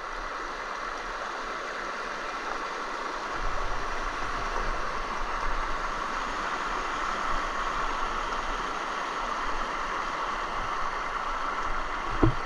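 Shallow river water running steadily over rocks, a little louder from about three seconds in, with a brief thump near the end.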